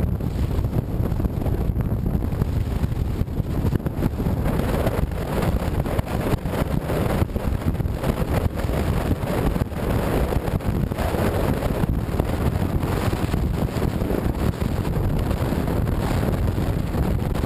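Wind buffeting the microphone over the steady road noise of a car driving at speed.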